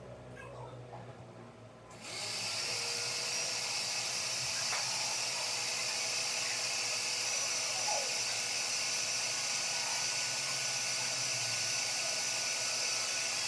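A steady hiss starts suddenly about two seconds in and holds evenly, with a few faint steady tones in it.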